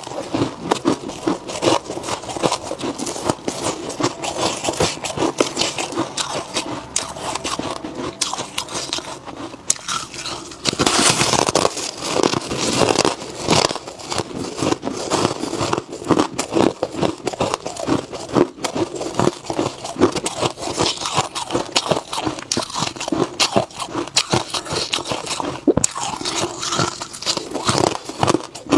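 Close-miked eating of freezer frost: a steady run of crunching as mouthfuls of packed frost are bitten and chewed, with louder crunching about eleven seconds in.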